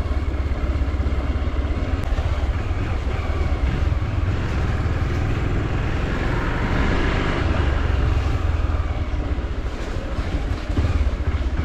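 Motorcycle engine running steadily as the bike is ridden at low speed, heard as a continuous low rumble.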